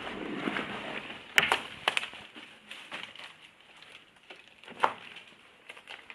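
Footsteps crunching and scuffing over a debris-strewn floor, with sharp clicks and knocks about one and a half, two and five seconds in; quieter after the first two seconds.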